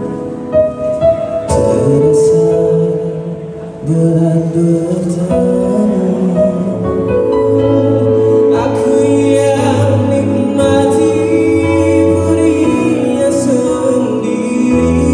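Slow ballad played live on a Yamaha electronic keyboard through the PA, sustained chords changing every second or two, dipping briefly in level a few seconds in.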